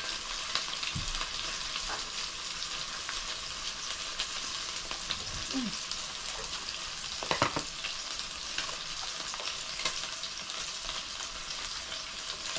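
Pork sizzling steadily as it grills in a tabletop electric grill pot, with scattered light clicks and one louder knock about seven seconds in.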